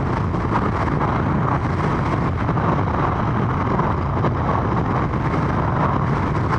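Motorcycle running at steady cruising speed, with wind rushing over the onboard microphone in an even, unbroken noise.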